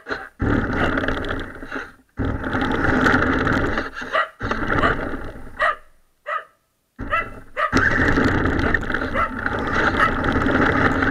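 A dog barks again and again in short barks. Between them come long stretches of loud, close rumbling noise from a radio-controlled toy car's motor and tyres running over gravel.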